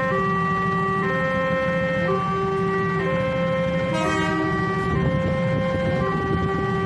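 Railway level-crossing warning alarm sounding a repeating two-tone, high-low pattern that changes pitch about once a second, over a steady low rumble of idling traffic.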